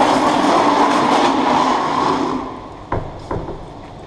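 A loud, steady rushing mechanical noise that fades out about two and a half seconds in, followed by two sharp knocks close together.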